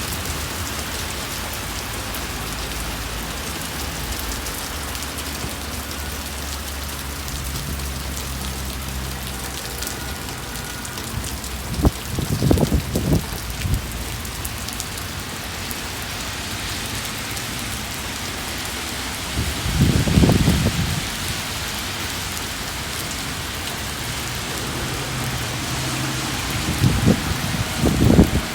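Steady rain falling on hard surfaces, a constant hiss of drops. It is broken three times by short, loud low rumbles.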